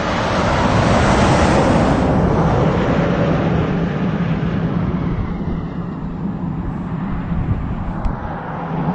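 Highway traffic noise from a passing truck, swelling over the first second or two and then fading away, over a steady low hum.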